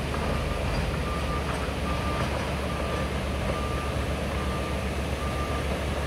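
Backhoe loader's reversing alarm beeping steadily, a little more than one beep a second, over a low steady rumble.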